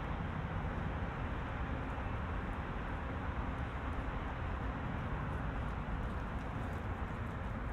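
Steady city street ambience: a constant low traffic rumble with no distinct events standing out.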